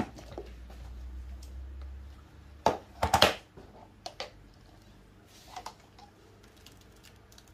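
Spoon scraping and clicking against the plastic bowl of a Moulinex mini chopper as ground vegetable paste is scooped out, with a loud double knock about three seconds in and a few lighter clicks after.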